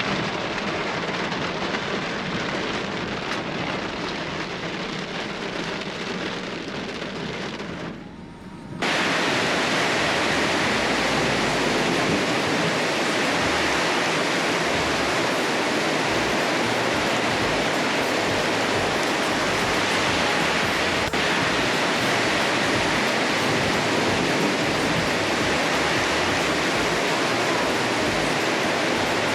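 Heavy rain pouring down in a steady hiss. About eight seconds in there is a brief dip, then a louder, fuller downpour that holds steady.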